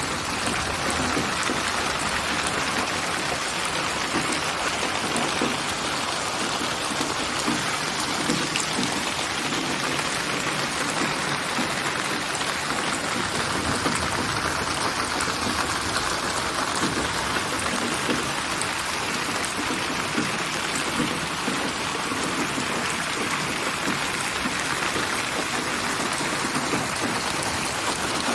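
Steady, dense rain falling on surfaces, with fine scattered drop ticks; a synthetic rain soundscape built from layered rain samples.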